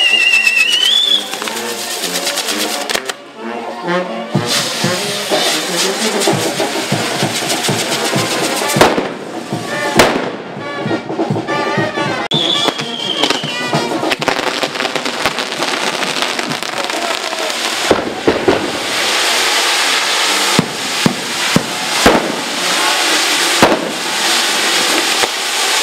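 Fireworks and firecrackers going off in many sharp cracks and bangs, with music playing underneath; the bangs come thicker and louder in the second half.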